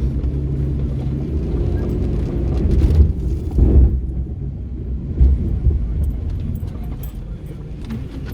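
Four-wheel drive's engine running with a low, steady rumble, swelling briefly a few seconds in, with a few light knocks and rattles later on.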